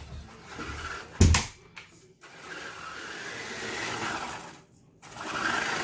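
FTX Kanyon RC crawler's electric motor and gearbox running with a newly fitted larger pinion, whirring in spells with a short break near the end, free of the clicking the stripped gears made before the repair. A sharp knock about a second in.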